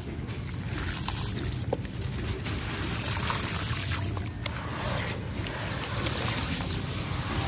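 Hands sloshing in a basin of muddy water, crumbling a soaked sand-cement chunk so gritty sand falls into the water and squishing the wet mass under the surface. A steady watery swishing with a few small gritty clicks.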